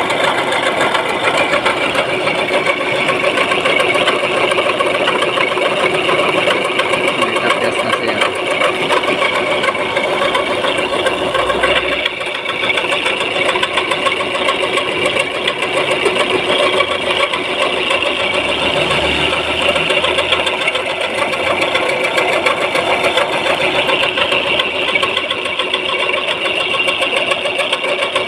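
Milling machine running: a loud, steady machining noise with a fast, busy rattle, dipping briefly about twelve seconds in.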